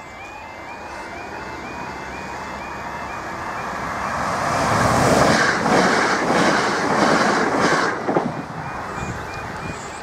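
Southern Class 377 electric multiple unit passing close at speed over a half-barrier level crossing. The rush builds steadily, peaks with a series of sharp beats as the carriages go by, then falls away suddenly about eight seconds in. At first the crossing's warning alarm repeats about three times a second, until the approaching train drowns it out.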